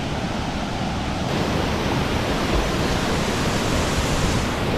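Steady rush of a waterfall pouring into a pool, heard close, growing a little louder about a second in.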